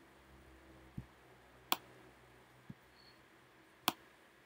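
Two sharp computer mouse clicks about two seconds apart, with a couple of soft low knocks in between.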